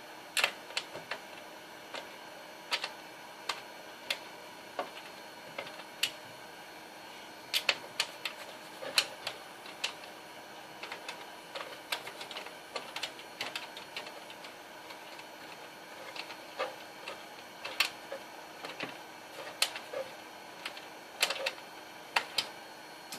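Irregular light clicks and taps, one to a few a second, over a faint steady hiss: small metal parts and screws being handled while a motherboard is fitted into a PC case.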